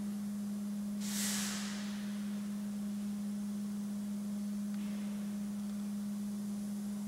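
A steady low-pitched hum on one constant note, with a brief hiss about a second in.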